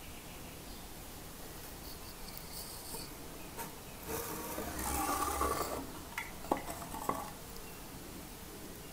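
A granite rock sample being lifted out of a water-filled plastic graduated cylinder: water sloshing and dripping for a couple of seconds starting about four seconds in, followed by a few sharp small knocks.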